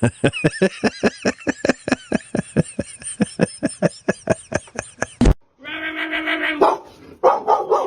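A dog vocalizing in a fast, even rhythm of short, sharp calls, about five a second, cut off suddenly a little over five seconds in. A single held, even-pitched call follows, then shorter pitched calls.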